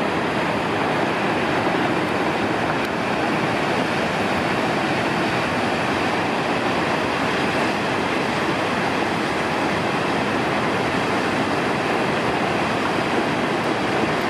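Steady rush of a large waterfall: one even, unbroken roar of falling water that holds the same level throughout.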